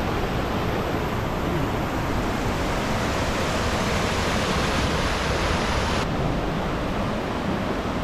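Steady rushing of whitewater in the river rapids at Fukiware Falls, an even hiss with no break; its brightest hiss drops away about six seconds in.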